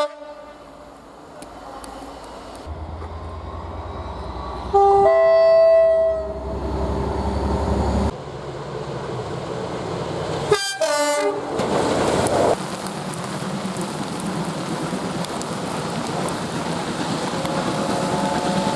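Train horns from several passing trains, with abrupt cuts between them. Over the rising rumble of an approaching train, a loud horn blast sounds about five seconds in, stepping from a lower note to a higher one. The sound then cuts away to a second train giving short toots as it rushes past, and a third horn starts near the end.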